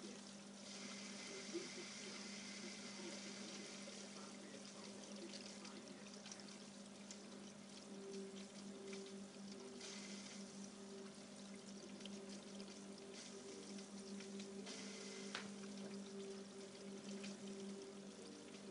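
Aquarium water trickling and splashing, as from a filter return, over a steady low hum, with one sharp tick near the start.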